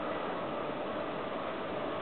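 Japanese railway level-crossing alarm ringing as the barrier comes down for an approaching train, over a steady rushing noise.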